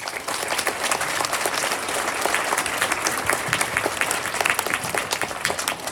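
Audience applauding, starting suddenly as a speech ends.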